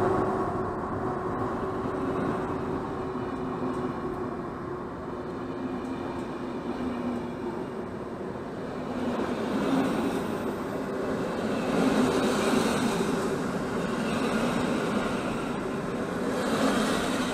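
Intercity passenger coaches of a departing train rolling past close by: a steady rumble of wheels on the rails, growing somewhat louder in the second half.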